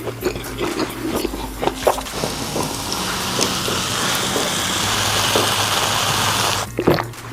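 Hot chili oil poured over sliced fatty beef, sizzling as a steady hiss that builds over a few seconds and cuts off suddenly near the end. A few light clicks and clatters come before it.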